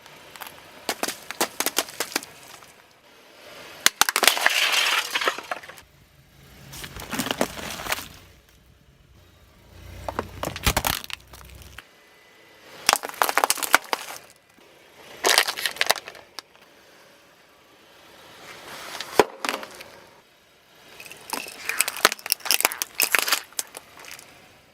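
Brittle objects crunching and cracking as they are crushed under a car's tyres: about eight separate bursts of crackling a few seconds apart. A low rumble sits under the bursts for a few seconds near the middle.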